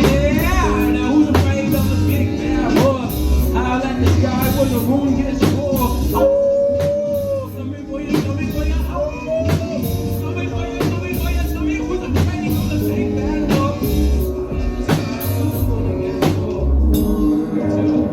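Music with a steady beat and pulsing bass, with a voice singing over it.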